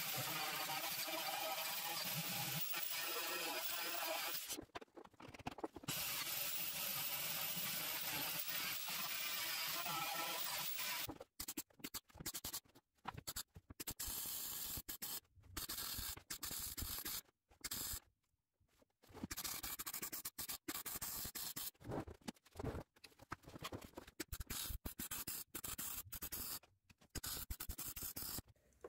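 MIG welder laying weld on 3 mm seat-belt anchor plates on a car's rusty chassis, with a steady crackle in two long runs with a short break near five seconds. After about eleven seconds it changes to many short crackling bursts, stitch-welding in quick pulses.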